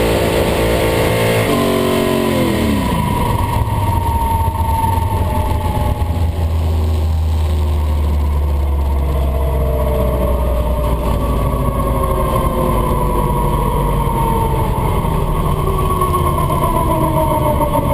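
1965 Plymouth Belvedere drag car heard from inside the cabin: the engine holds steady revs for a second or so, then drops sharply as the throttle is lifted. The car then coasts down with a low rumble and a whine that falls slowly in pitch as it loses speed.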